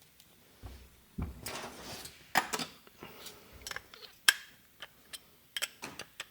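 Small metal carburetor parts and a hand tool being handled during reassembly, making irregular light clicks and clinks. Two soft thumps and a brief rustle come near the start, and the sharpest click comes a little past four seconds in.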